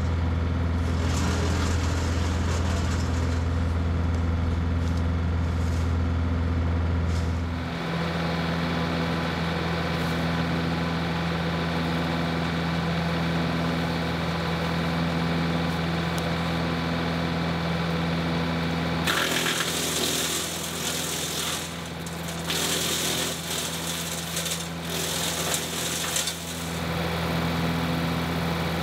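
John Deere 2038R compact tractor's diesel engine running steadily at working speed, driving a Frontier three-point PTO wood chipper. From about two-thirds of the way through, the chipper chews brush in rough, uneven bursts over the engine.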